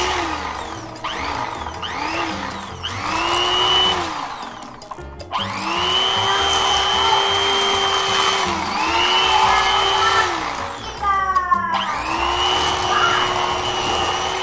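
Electric fillet knife whirring as it cuts through a fish, switched on and off about seven times. The first runs are short, the later ones last two to three seconds, and the motor's whine rises in pitch as it spins up and falls as it winds down each time.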